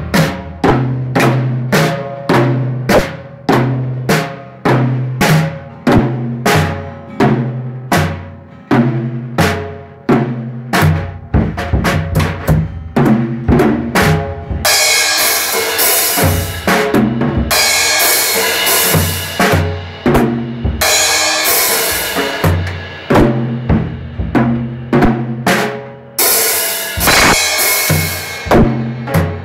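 A child playing a red WorldMax acoustic drum kit: single drum strikes about twice a second, the toms ringing after each hit. In the second half there are several cymbal crashes, each washing on for a couple of seconds.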